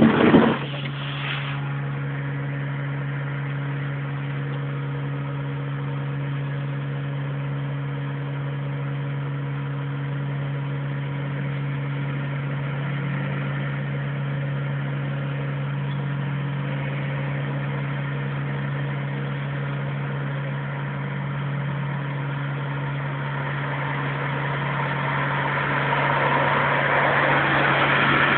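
A heavy, steady buzzing hum of unknown origin, holding a constant low pitch. A short burst of noise comes right at the start, and a rushing noise swells near the end.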